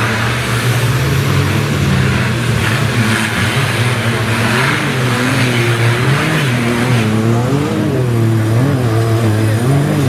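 Off-road trial crawler's engine revving hard under load as it climbs a rock step, the pitch swinging up and down in repeated quick blips through the second half.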